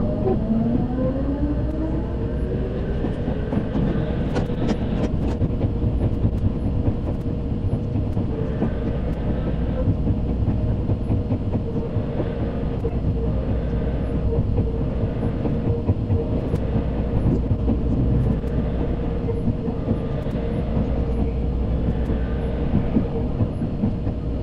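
Tobu 100 series Spacia electric train running, heard from inside: the traction motor whine rises in pitch over the first few seconds and then holds steady, over a constant rumble of wheels on rail.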